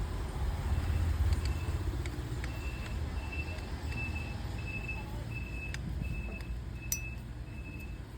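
Low rumble of a vehicle engine, with a short high electronic beep repeating evenly about twice a second from about two and a half seconds in, typical of a reversing alarm. A few light clicks.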